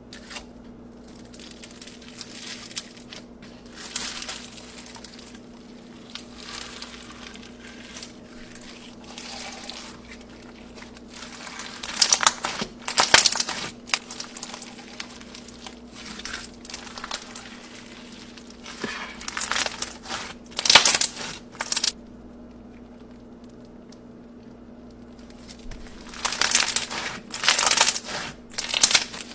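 Hands squeezing, folding and stretching a clear red slime packed with small colourful beads, giving crackling, squishing sounds in bursts, with three louder spells of squeezing: a little before the middle, about two-thirds through and near the end.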